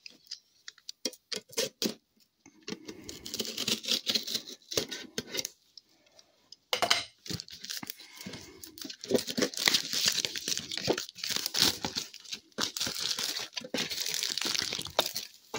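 Plastic shrink-wrap being torn and peeled off a trading-card tin, crackling and crinkling in long stretches. There are a few sharp clicks of the tin being handled in the first couple of seconds.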